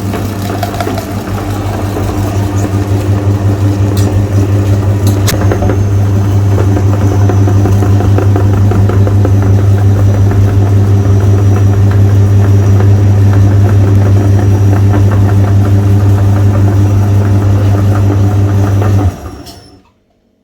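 Electric meat grinder running with a steady low motor hum and a fast, even pulsing as it grinds ice cream bars, switched off about a second before the end.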